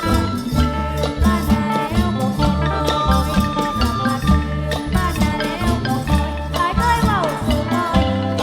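Isan pong lang folk ensemble playing: a melody over a steady low drum beat, with shaken rattle-like percussion and a few bending notes.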